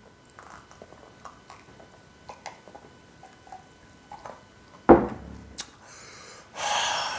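Cola being gulped from a glass, faint swallowing clicks, then the glass set down on the table with a sudden thud, the loudest sound, just before five seconds in. Near the end comes a long, breathy open-mouthed exhale after the drink.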